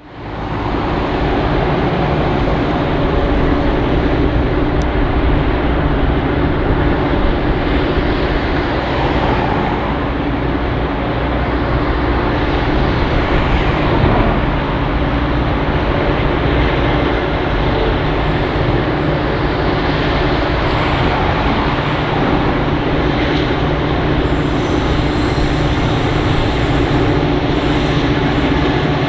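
Pacific National G class and BL class diesel-electric locomotives G540 and BL33 hauling a loaded grain train toward the listener, their engines running as a steady, loud drone with a low hum.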